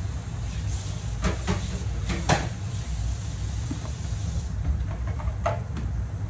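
Cooking at a gas stove: a steady low rumble with a few short clinks and knocks, a cluster about one to two and a half seconds in (the loudest near the end of it) and a few more around five and a half seconds.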